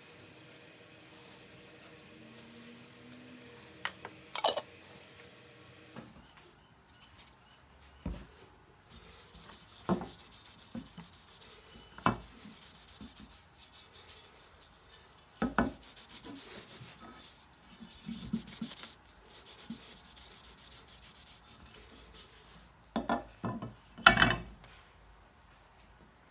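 A cloth rag rubbing along a cleaver's wooden handle on a wooden workbench, making a scratchy hiss. Several short, sharp knocks break through it as the cleaver is handled on the bench, and the loudest come near the end.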